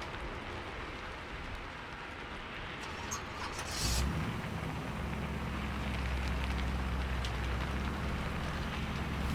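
Steady rain hiss on a wet city street; about four seconds in, a motor vehicle comes close after a short hiss and its engine runs on as a steady low hum.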